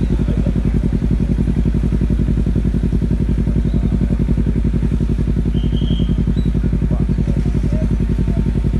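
An engine running steadily, close and loud, with a fast, even throb.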